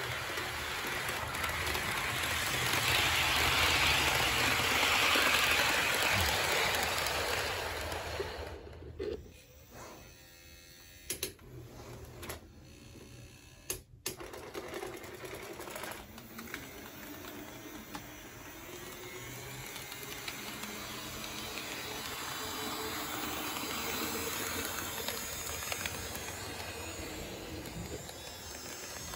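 HO-scale model train running on sectional plastic-roadbed track: the motor whirs and the wheels clatter over the rail joints. The sound swells and fades in the first several seconds, a few sharp clicks follow in a quieter stretch, and it builds again as the locomotive approaches near the end.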